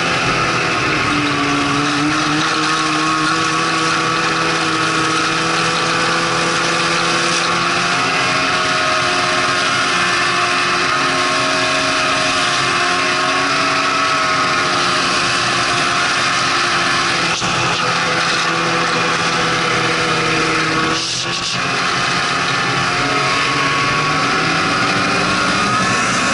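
Snowmobile engine running steadily at cruising speed with a constant whine, easing off briefly about three-quarters of the way through and then picking back up.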